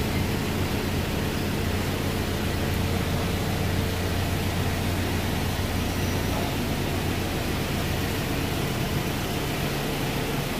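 A machine running steadily: a low, even hum with a constant hiss over it.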